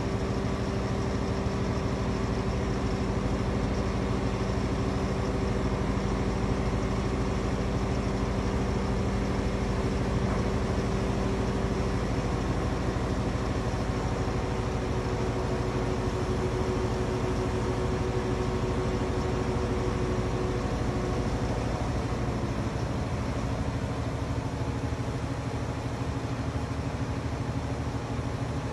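Heavy diesel engines of mobile cranes running steadily under a lift, a continuous low rumble with a held hum in it. Some of the steadier tones drop away partway through.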